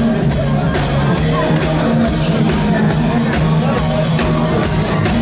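Live pop band music played loud through a concert PA, with a steady drum beat and bass line and a male singer's voice.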